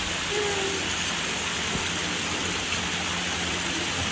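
Dozens of thin water jets spraying from the brick walls of a fountain walkway and falling on the wet paving: a steady hiss of spray.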